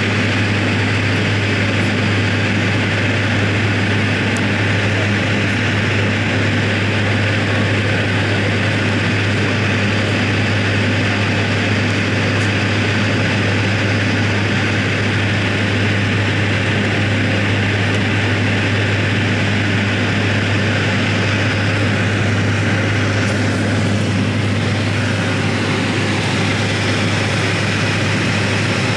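Steady drone of a turboprop airliner's engines and propellers in flight, heard inside the passenger cabin, with a strong low hum that holds constant throughout.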